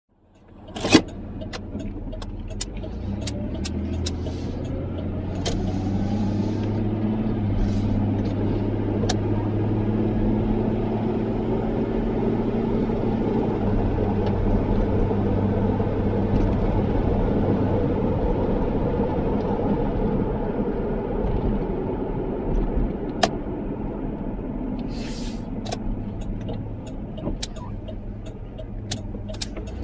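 Car engine and road noise while driving, building as the car picks up speed in the first few seconds, then steady, easing slightly near the end. Scattered sharp clicks and knocks, the loudest about a second in.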